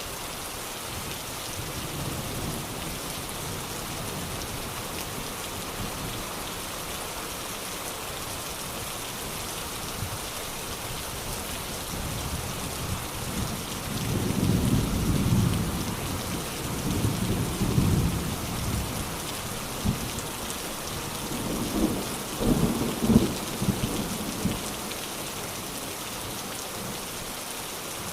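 Steady rain falling, with thunder rumbling in the second half in several rolls, the loudest about three quarters of the way in.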